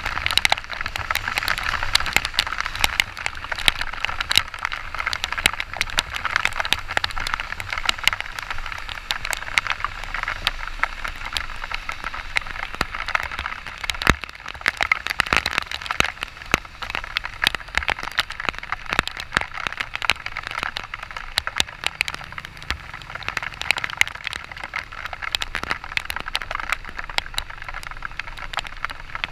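Heavy rain hitting the camera on a moving motorcycle: a dense, steady run of sharp drop clicks over a rain hiss, with one louder tap about halfway through. Underneath runs the low drone of the Yamaha XTZ 125's single-cylinder engine and the wind of riding.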